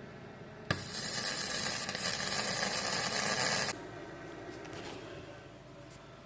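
Gasless flux-core MIG welder arc crackling and hissing in one burst of about three seconds, starting with a click about a second in and cutting off abruptly, as a repair patch is welded onto rusty bodywork.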